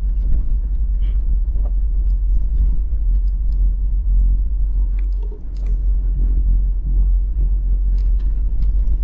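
Vehicle driving over a rough dirt road: a loud, steady low rumble, with scattered short knocks and rattles.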